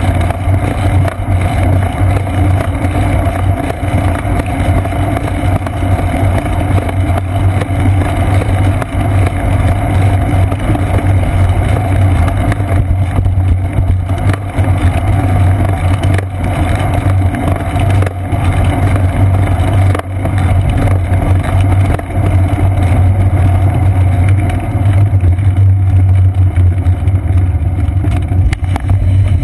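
Steady rush of wind and road rumble picked up by a bicycle's seat-post-mounted GoPro Hero 2 while riding, loud, continuous and without breaks, with a constant low drone.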